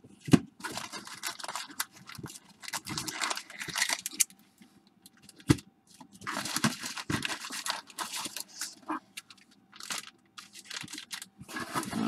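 Foam packing peanuts and wrapped packs rustling and crinkling in a cardboard box as hands rummage through them. The sound comes in irregular bursts, with a sharp knock just after the start and another about five and a half seconds in.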